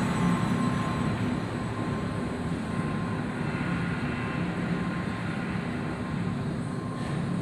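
Handheld butane canister torch burning with a steady rushing hiss, its flame played inside an orange PVC 45° fitting to heat it and free a smaller pipe stuck inside.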